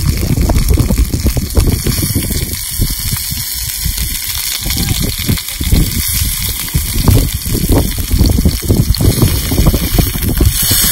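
Beef steaks sizzling on a hot stone slab over a fire, their juices bubbling and spitting on the stone. Irregular low thumps and rumbling run underneath.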